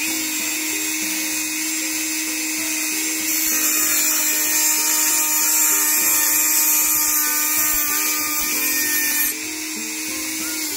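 Dremel rotary tool running steadily at high speed with an EZ Lock grinding disc. From about three seconds in until about nine seconds, a harsher, higher grinding hiss joins as the disc glances along the trailing edge of an aluminium boat propeller blade, sharpening it.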